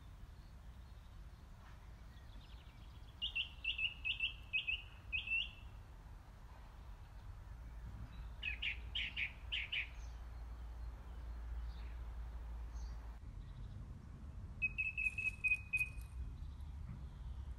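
Small birds chirping outdoors in three short runs of notes: about six chirps, a quick burst of sharp notes a few seconds later, and a fast trill near the end, over a low steady background rumble.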